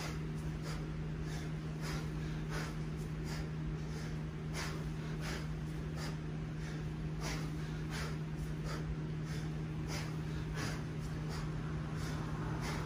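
Short, forceful breaths of a man doing kettlebell snatches, repeating about two a second, over a steady low hum.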